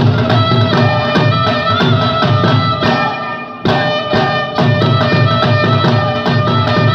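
Bhangra music with a dhol drum beating a quick, driving rhythm under a melodic instrument line. The music thins out for a moment about three seconds in, then comes back sharply on the beat.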